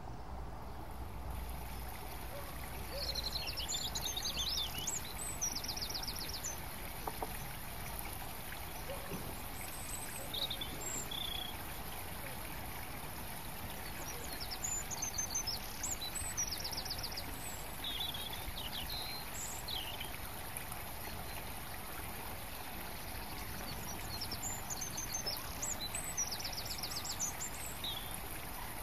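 Songbirds singing over a steady rushing hiss. One bird repeats a short song ending in a rapid trill three times, about every ten seconds, with scattered single calls between.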